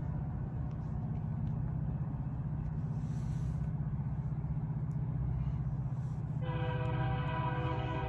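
Approaching train locomotive rumbling steadily while its multi-tone air horn blows a chord. One blast dies away just after the start, and another, louder and held, begins about six and a half seconds in.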